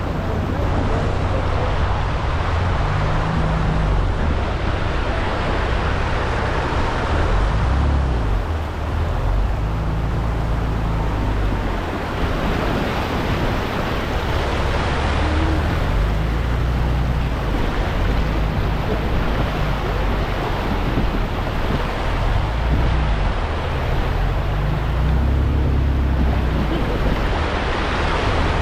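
A 4x4 vehicle driving on rough ground, its engine making a low rumble that swells and eases, with a steady rushing noise of wind or water over it.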